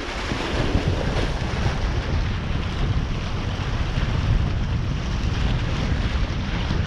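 Wind buffeting the microphone in a steady, gusting rumble, over a constant wash of waves.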